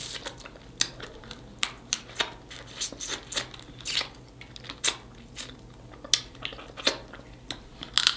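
Snow crab leg shells cracking and snapping as they are broken open: an irregular run of sharp cracks, roughly two a second, with short rasping noises between them.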